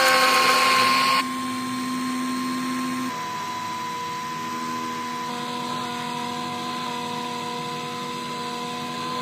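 Electric oil-extraction pump motor humming steadily while it draws old diesel engine oil out of the engine. Its pitch sags slightly in the first second, and it gets a little quieter about a second in and again about three seconds in.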